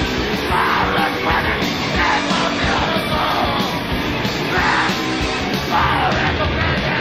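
Loud, dense band recording of distorted guitar, bass and drums, with a voice shouting over it in short repeated outbursts.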